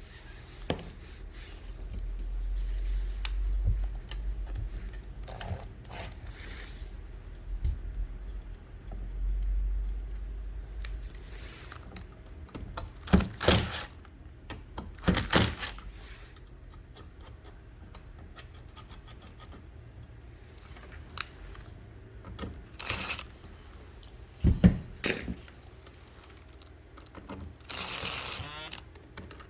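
Scattered clicks, clinks and rattles of small hard objects being handled, with a few sharper knocks a little past the middle and near the end, over a low rumble in the first third.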